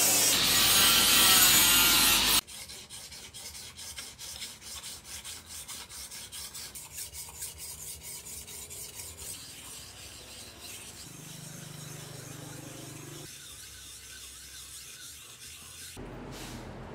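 Rhythmic hand rasping strokes of finishing work on a forged knife, about four a second, easing into a softer, steadier rubbing. It opens with a louder, harsher rasping noise that cuts off abruptly about two seconds in.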